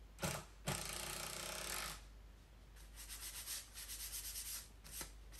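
Cordless drill driving a screw into a plywood top for about a second and a half after two short trigger blips, then sandpaper rubbed by hand over the plywood in quick back-and-forth strokes.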